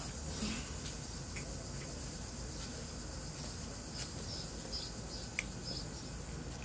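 Steady outdoor background hum with a few faint, short, high-pitched chirps in the second half, and a couple of small clicks.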